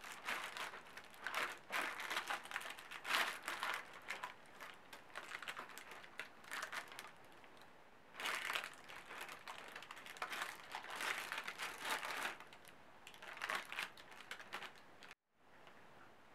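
Parchment paper crinkling and rustling as a silicone spatula presses and spreads thick cookie dough across it, in irregular strokes. The strokes pause briefly about halfway through and die down well before the end.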